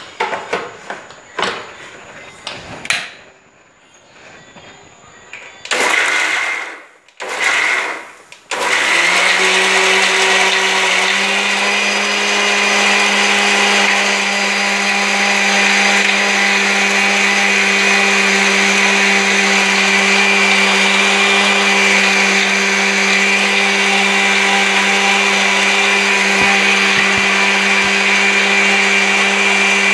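Knocks as the steel jar is set on the mixer grinder's base. Then two short pulses of the motor, and from about nine seconds in the mixer grinder runs steadily, grinding green grapes, ginger, mint and lemon with water into juice. Its pitch steps up slightly a couple of seconds after it starts.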